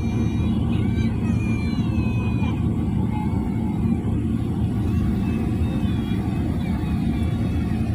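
Steady low rumble of a Boeing 777's jet engines and airframe, heard from inside the passenger cabin as the airliner rolls along the ground.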